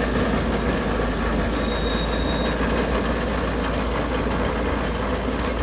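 A tractor-drawn silage trailer unloading: its moving floor pushes chopped silage out through the raised rear hatch. The machinery and engine run steadily, with short high squeaks coming and going over the low rumble.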